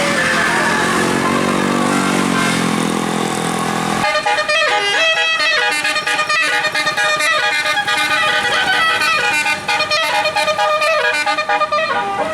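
A bus passing with its engine note falling in pitch. About four seconds in, a telolet basuri multi-tone bus horn starts playing a quick melody of short stepped notes that runs on to the end.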